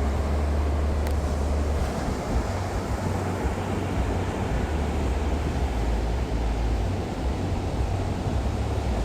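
Ocean surf washing steadily, with heavy wind rumble on the microphone.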